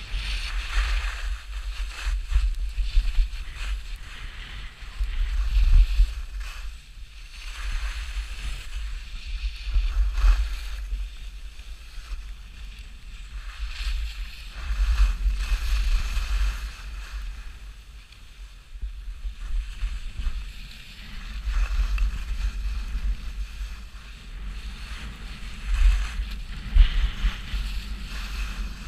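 Wind buffeting a GoPro's microphone while skiing downhill, with the hiss of skis scraping and carving on packed snow swelling and fading with each turn.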